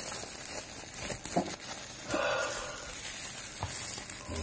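Thin plastic shrink-wrap film being peeled off a Blu-ray mediabook case and crumpled in the hand, crinkling and crackling with small clicks.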